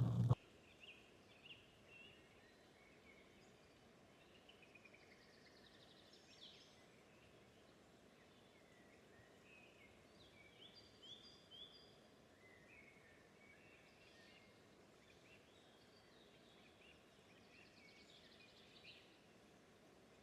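Faint birdsong: many short chirps and whistles from several birds over a low, even background hiss. A louder sound cuts off abruptly right at the start.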